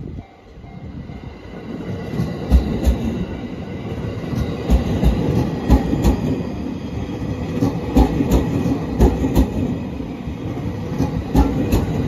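JR East E231-1000 / E233-3000 electric commuter train passing over a level crossing. Its running noise builds from about a second in, and the wheels clack in quick pairs over the rail joints as each bogie goes by. The crossing's warning bell rings steadily underneath.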